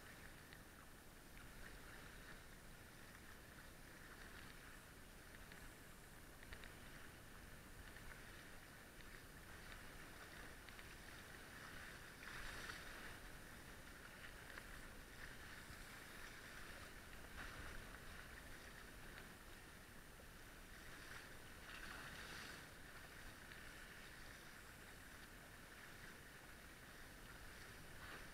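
Faint water washing and splashing against the hulls of a small sailing catamaran under way in a chop, with a few louder surges of spray.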